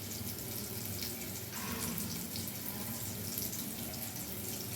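A pot of okra and tamarind rasam boiling hard over a high flame, a steady bubbling.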